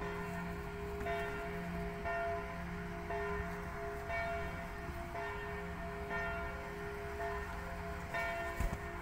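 Bell tones ringing steadily, a new stroke roughly every second. Near the end a single dull thump stands out above them.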